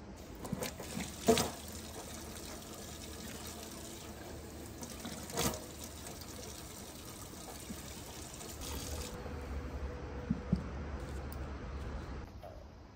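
Water running from a faucet into a stainless-steel sink as someone washes her face under it, with a few sharp knocks, the loudest about a second in. The water stops near the end.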